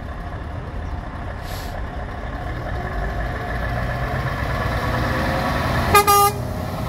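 Diesel lorry engines rumbling as a Scania tractor unit draws up to and passes close by, growing slowly louder. About six seconds in, a lorry horn gives two short blasts.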